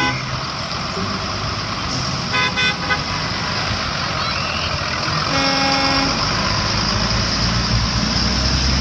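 School buses driving past on a wet street: engines running and tyres hissing on the wet road. A horn sounds briefly about five and a half seconds in.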